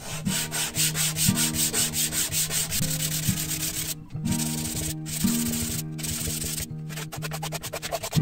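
Small wooden piece rubbed back and forth by hand on 240-grit sandpaper laid flat: quick rhythmic scratching strokes, about five a second, with a few brief pauses and faster, shorter strokes near the end.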